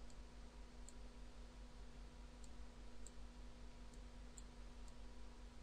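A handful of faint computer mouse clicks, spaced irregularly, over a steady low hum and hiss.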